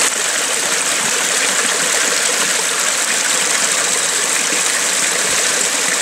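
Small man-made waterfall: a narrow stream splashing down over rocks in a steady, loud rush.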